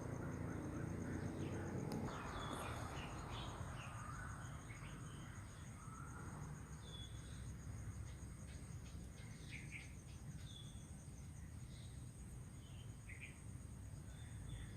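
Wild birds giving short, scattered chirps over a steady high-pitched insect trill. Beneath them is a low, even rush of trickling water, a little louder for the first two seconds.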